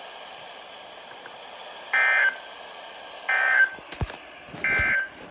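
Emergency Alert System SAME end-of-message data bursts received over a radio: three short bursts of buzzy data tones about 1.3 seconds apart over steady hiss, marking the end of the warning. A couple of low knocks come near the end.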